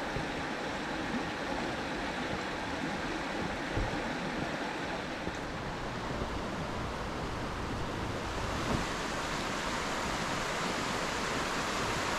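A river rushing steadily over stones, growing a little louder and brighter about eight seconds in.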